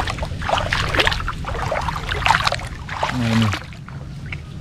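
Water splashing and sloshing as someone wades and gropes by hand through a flooded rice paddy, with a brief voiced sound about three seconds in, after which the water noise quietens.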